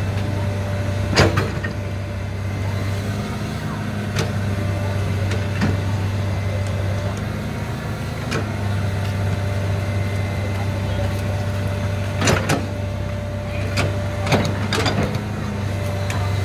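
Komatsu PC200 hydraulic excavator's diesel engine running steadily under load as it digs, with a steady low hum. Sharp knocks from the bucket working the earth come about a second in, a few more through the middle, and a cluster near the end.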